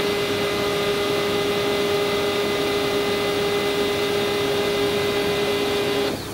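HP LaserJet Pro M28w laser printer's motor running as the printer restarts after a factory reset: a steady whirring hum with a clear pitch, which stops abruptly about six seconds in.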